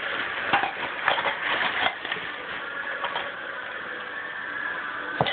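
Rustling and knocking of a cardboard shipping box and its packing being handled and searched, with several sharp knocks in the first two seconds and then a steadier rustle.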